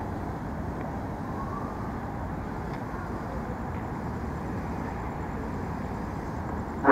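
Electric commuter train (KRL) rolling slowly in along the platform: a steady low rumble and hiss, with a faint rising whine about a second in.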